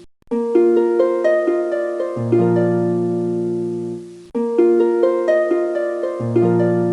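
Background music: a plucked-string melody over held low notes. It cuts out briefly just after the start and again about four seconds in, then starts over.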